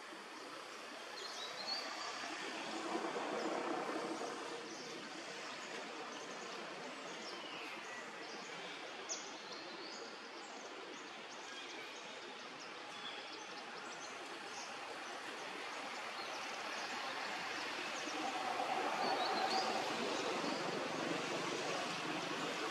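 Steady outdoor forest ambience, an even hiss of background noise, with a few short, high bird chirps.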